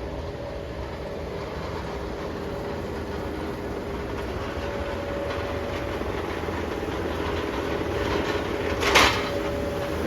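Engine of heavy machinery running steadily and slowly growing louder, with a loud metallic clank about nine seconds in.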